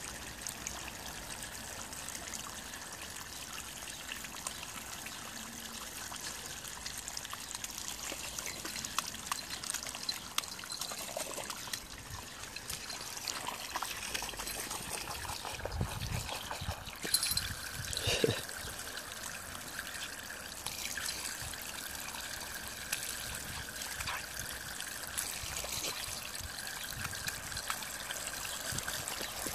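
A thin jet of water from the base of a hot tub splashing and trickling steadily onto wet stone paving slabs. A few louder splashes or knocks and one short falling cry come about two-thirds of the way through.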